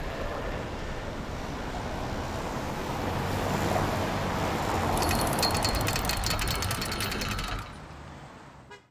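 City street traffic noise. From about five seconds in, a fast rattling tick sits on top of it, stops, and the sound then fades out.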